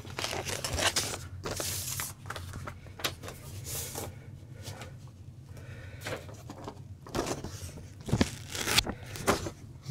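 Record inner sleeve rustling and crinkling in irregular bursts as a vinyl LP is handled and slid in and out of it.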